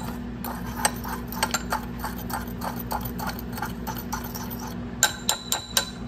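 Metal spoon stirring a dry mix of cocoa powder, sugar and salt in a ceramic mug, scraping and ticking against the sides about three times a second. A few sharper, ringing clinks of spoon on mug come about five seconds in.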